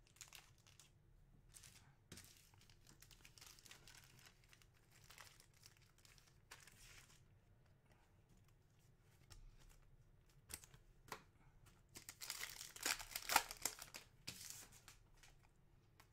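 A trading card pack's plastic wrapper crinkling and tearing as it is opened, with the cards pulled out. This is loudest in a cluster of crackles about three quarters of the way through, after faint rustling of cards being handled.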